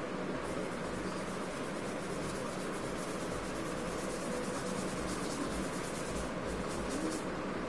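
Paintbrush scrubbing watercolour onto paper in quick repeated strokes, starting about half a second in and stopping shortly before the end, over a steady background hum.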